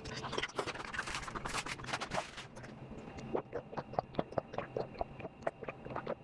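Close-up eating sounds: wet chewing and mouth clicks, dense at first, then a run of separate sharp clicks a few times a second.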